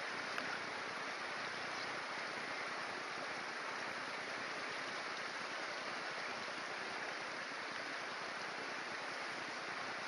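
Steady rush of a mountain stream running, an even wash of water noise that does not change, with one faint tap about half a second in.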